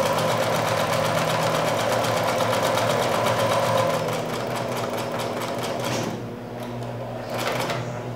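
Electric domestic sewing machine stitching a hem: a rapid, even run of needle strokes over the motor's hum, stopping about six seconds in, then a short second run near the end.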